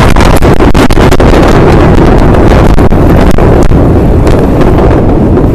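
Beirut port explosion's blast wave at close range: a continuous heavy roar that overloads the phone's microphone into distortion, with rapid crackling strokes in the first second, easing slightly after about four seconds.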